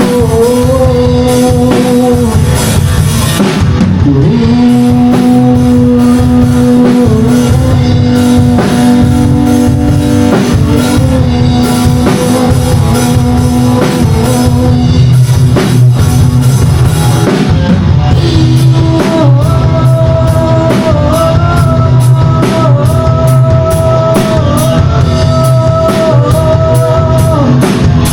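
A rock band playing loud through a PA system at a sound check: a drum kit beating under guitar, with long held melody notes.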